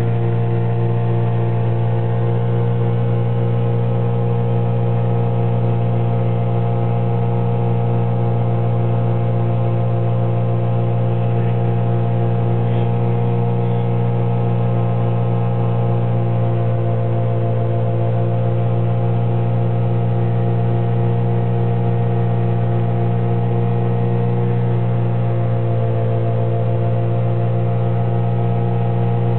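Searey amphibious light aircraft's pusher engine and propeller droning steadily in flight, heard inside the cockpit: a deep, even hum that shifts slightly in pitch about 25 seconds in.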